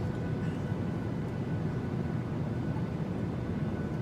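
Steady drone of an airliner cabin in flight: engine and airflow noise, with faint steady tones above it.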